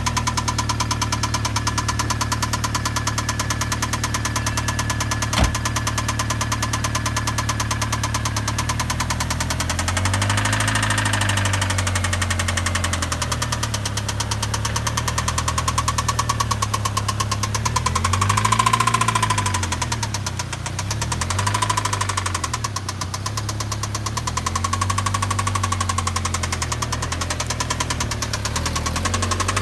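Turbocharged Mazda Miata inline-four engine running with a rapid, steady rod knock from a failed connecting-rod bearing. It idles at first, with one sharp click about five seconds in, then from about ten seconds in it is revved up and back down several times.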